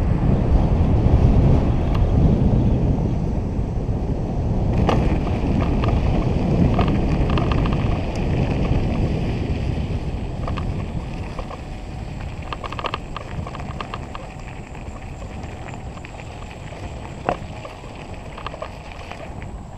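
Wind buffeting the microphone of a camera moving along a road, fading as the ride slows. From about five seconds in, scattered clicks and rattles come through, along with tyres crunching over gravel.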